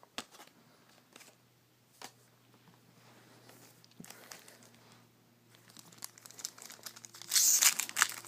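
A few light taps, then a Bowman Platinum trading-card pack's wrapper crinkling and being torn open, building up and loudest near the end.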